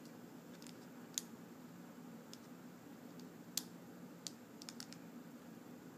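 Faint, scattered clicks and crackles of a clear plastic blister pack being handled in the fingers, two sharper ones about a second and three and a half seconds in and a quick cluster near the end, over a low steady background hum.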